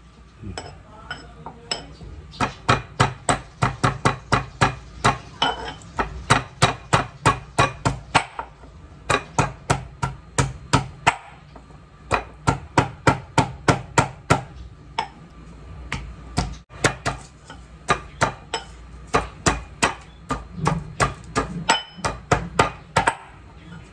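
Pestle pounding in a small metal mortar: sharp knocks, about three to four a second, in runs with short pauses between them.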